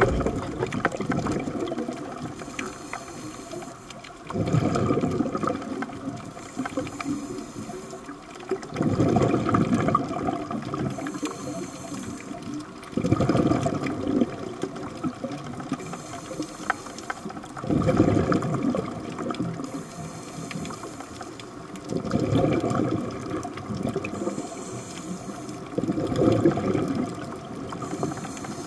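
Scuba diver breathing through a regulator underwater: exhaled bubbles rushing out in a burst about every four seconds, each breath followed by the short high hiss of an inhalation through the demand valve.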